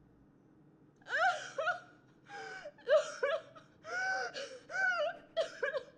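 A person sobbing: a string of short, gasping, high-pitched crying bursts with a wavering, breaking voice, starting about a second in.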